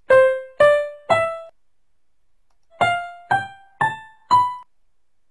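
Recorded keyboard scale playing from a sound file, one note at a time, rising in pitch. Three notes sound, then playback pauses for about a second and a half. It resumes with four more notes that carry on up the scale from where it stopped, showing the pause and resume working.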